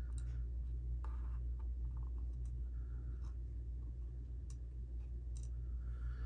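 Faint clicks and light scratching as small knife parts are handled and a screw is fitted into a folding knife's handle scale, over a steady low hum.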